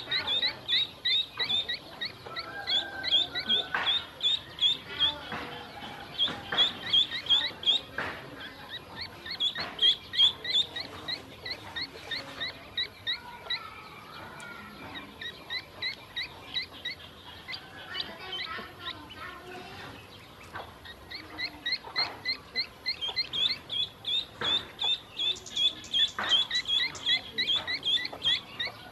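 A brood of ducklings peeping constantly: rapid strings of short, high chirps, thinning out through the middle and thickening again near the end, with occasional short clicks among them.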